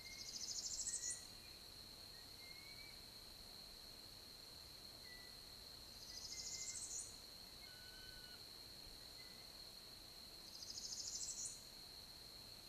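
A small songbird sings a short rising trill three times, about five seconds apart, over a steady high-pitched tone and faint scattered chirps of other birds.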